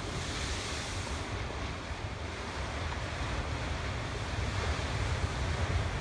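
Ocean surf washing over a rocky shore, a steady rush of breaking waves, with wind rumbling on the microphone.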